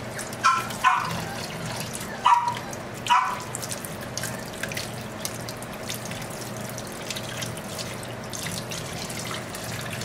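Kitchen sink faucet running steadily as a puppy is rinsed under the stream. Four short squeaks sound over the first three seconds.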